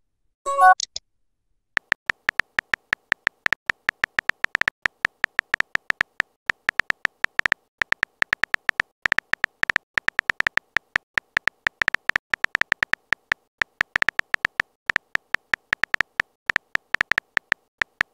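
Simulated phone-keyboard key-tap sound effects: a fast, uneven run of short high ticks as a message is typed. A brief electronic blip comes about half a second in.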